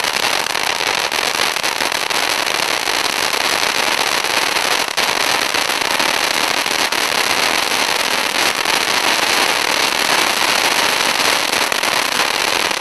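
A 13-inch gold crackling volcano, a ground fountain firework, spraying sparks with a steady, loud hiss and a dense, continuous crackle of many small pops from its crackling stars.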